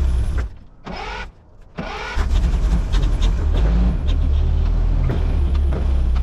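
1982 Hyster H150F forklift's engine running, with the hydraulics working the tilt cylinder back in. Its level dips about half a second in and comes back up about two seconds in.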